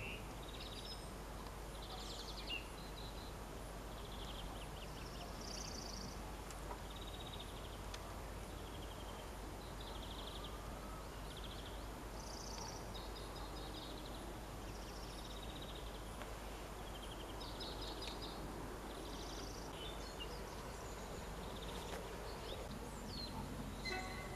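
Songbirds singing: short high trilled phrases, one every second or two, over a faint steady background noise. A faint low rumble comes up near the end.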